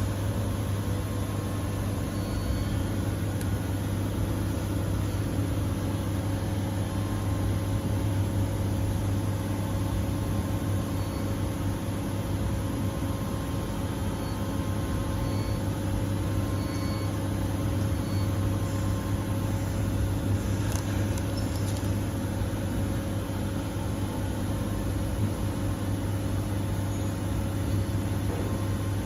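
A machine running steadily with a low hum.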